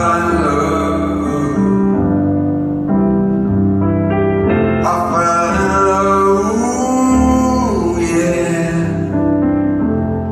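Live band playing a slow song with sustained keyboard chords, and a male lead voice holding long sung notes, one of them sliding in pitch about two-thirds of the way through.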